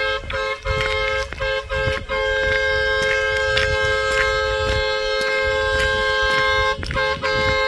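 Vehicle horn honking: a few short toots, then one long blast of about five seconds, then short toots again near the end. Two steady tones sound together, as from a dual-tone horn.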